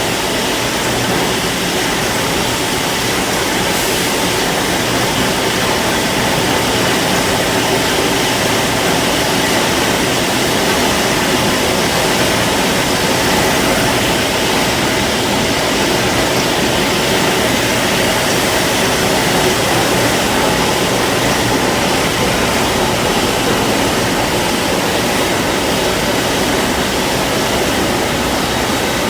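A machine running steadily: a constant loud rushing noise with a faint hum under it, unchanging throughout.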